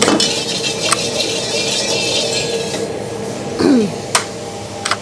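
Metal ladle clinking, knocking and scraping against a stainless-steel wok, over a steady hiss.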